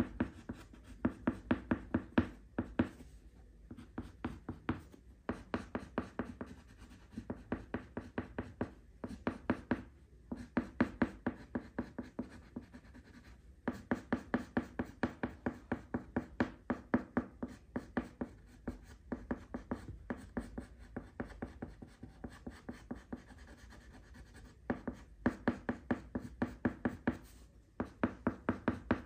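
Oil pastel crayon scrubbed back and forth on paper over a wooden tabletop: quick, rhythmic scratchy strokes, several a second, in runs of a few seconds broken by short pauses.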